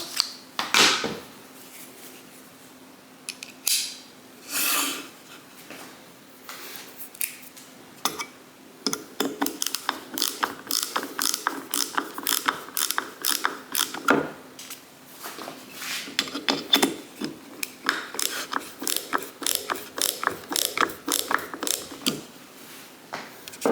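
Fine-toothed ratchet of a PB Swiss ratcheting T-handle bit holder clicking in rapid runs as the handle is worked back and forth. Two short rasps come in the first few seconds, and the clicking grows dense from about a third of the way in.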